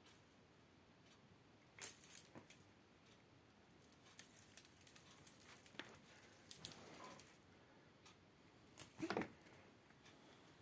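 Dried grass spikelet rustling and crackling faintly in three short bursts of light clicks as cats bat at it and paw it.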